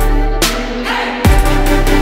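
Electronic background music with a heavy bass-drum beat; the beat drops out briefly about half a second in under a rising swell and comes back just after a second.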